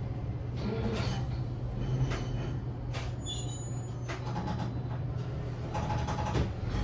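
Cabin of a Nagasaki Electric Tramway 3000-series tram: a steady low hum, with scattered light knocks and rattles about once a second.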